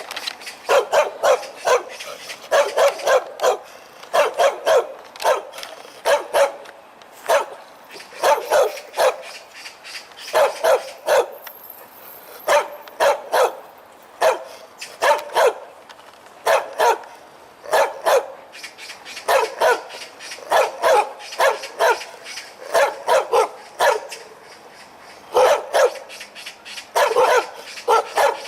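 A dog barking loudly and repeatedly, in runs of two to four barks roughly every two seconds.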